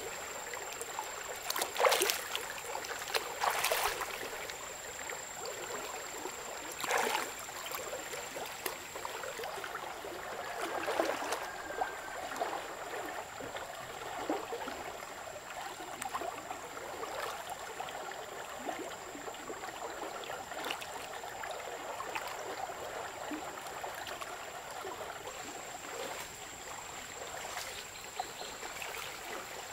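River water flowing and lapping, with splashes from a person bathing chest-deep in it, the sharpest about two, three and a half and seven seconds in.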